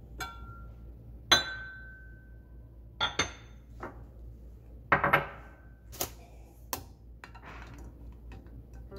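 Glass cookware clinking and knocking: a glass saucepan lid is lifted off and set down with a ringing clink. Then a slotted spoon knocks against the glass pot among the boiled eggs in water, in a string of separate sharp clinks.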